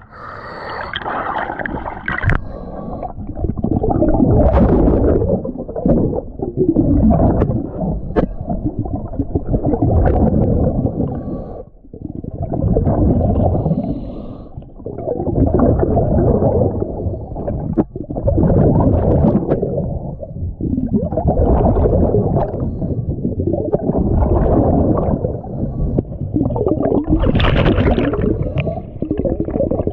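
A diver breathing through a regulator underwater, about one breath every two to four seconds, each breath swelling and fading with a rush of exhaled bubbles.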